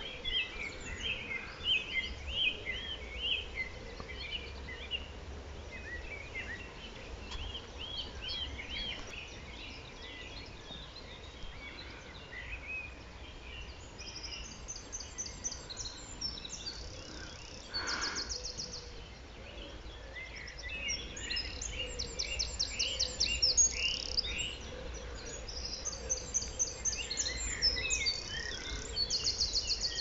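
Woodland songbirds singing together: wrens repeating their loud, rapid, high trilling song, which comes back several times from about halfway through, with a chiffchaff just about audible among other birds' shorter phrases.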